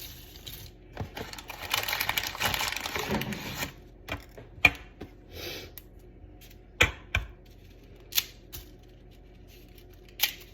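Dry broken lo mein noodles poured into a plastic pressure cooker: a dense rattling clatter about two seconds in, then scattered clicks and taps.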